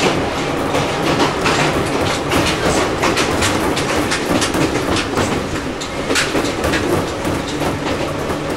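Ohmi Railway 800 series electric train car (MoHa 1809) running, heard from inside the car: a steady running hum with wheels clicking over rail joints.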